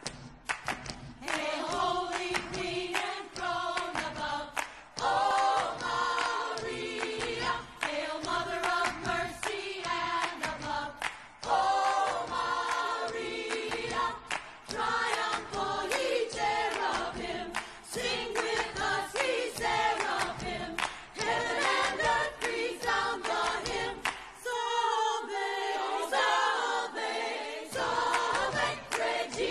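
A choir singing a song, several voices together.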